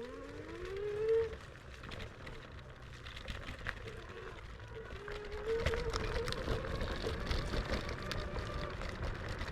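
IO HAWK Legend e-scooter's 500-watt geared motor whining. Its pitch rises as it speeds up in the first second, and it whines again, fairly steady, from about five seconds in. Under it are a low rumble and the knocks and rattles of riding over rough ground.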